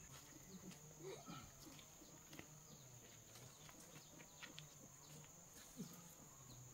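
Quiet rural outdoor ambience: a steady high insect drone with scattered faint clicks and animal sounds.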